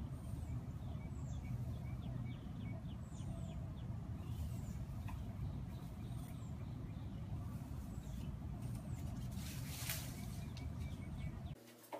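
Small bird chirping repeatedly in short high calls, over a steady low rumble of wind or handling noise on the microphone.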